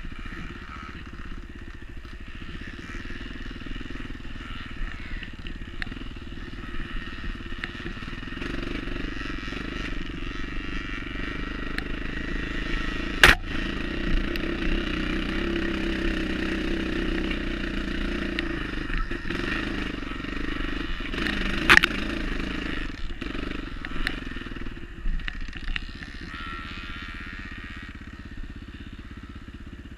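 Enduro dirt bike engine running steadily under way on a trail, louder through the middle stretch. Two sharp knocks stand out, one just before halfway and one about two-thirds of the way through.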